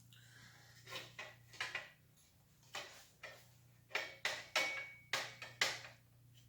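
A run of sharp knocks and clicks, some with a short metallic ring, as a metal straight edge and level are set against and shifted along the bicycle's handlebars. The knocks come thicker and louder in a quick cluster over the second half.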